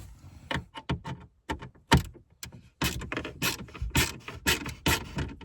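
Handling of the car's plastic dashboard trim and a screwdriver: a string of sharp clicks, knocks and rattles, sparse at first and then a dense run from about halfway through.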